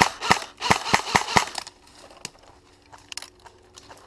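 Airsoft gun firing a quick string of single shots, about three a second, that stops about a second and a half in; a few faint clicks follow.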